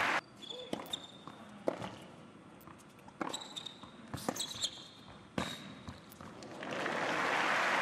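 Tennis ball knocking on an indoor hard court and off rackets, a series of separate sharp knocks with a few short high squeaks between them. Near the end crowd applause swells up.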